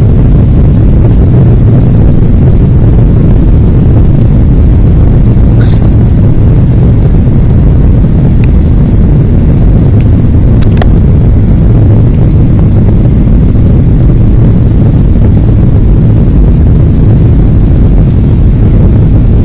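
Steady, loud low rumble of a jet airliner's engines and rushing air during takeoff, heard from inside the cabin, with a few light clicks about halfway through.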